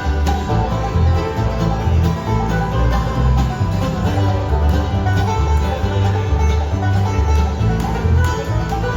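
Bluegrass band playing an instrumental passage: rapid banjo and guitar picking over a bass line that moves on a steady beat.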